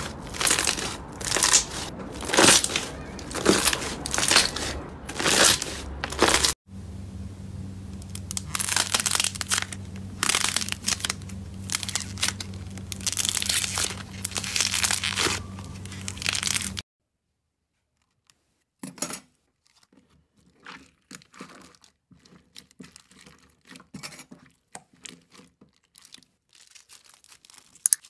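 Slime being squeezed and pressed by hand, with repeated crackling, crinkly squishes about one a second. In a middle stretch they sit over a steady low hum. After a short silence come sparser, softer clicks and crackles.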